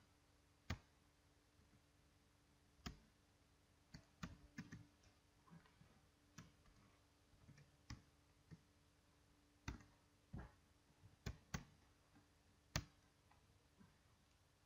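Faint, sparse keystrokes on a computer keyboard: single sharp clicks at irregular intervals, with stretches of quiet between them.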